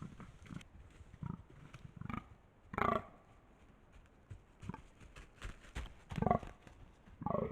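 Fallow deer buck giving its deep, guttural rutting calls, a string of short calls with the loudest about three seconds in and two more close together near the end.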